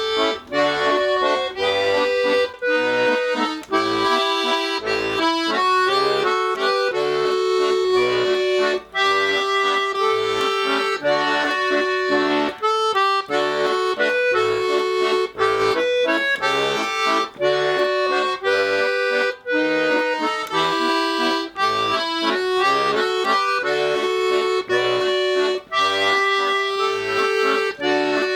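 A Tula-made 'Etude' bayan (Russian button accordion), just repaired and tuned, played as a demonstration: a melody with chords in the right hand over short left-hand bass notes.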